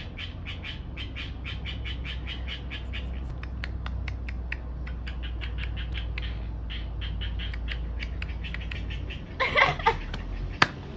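A person clowning with rapid, repeated high squeaky mouth noises, about four or five a second. Near the end there is loud laughter and a single sharp click.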